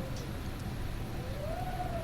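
Wind howling: a wavering moan that sags, then rises in pitch about halfway through, over a steady low rumble.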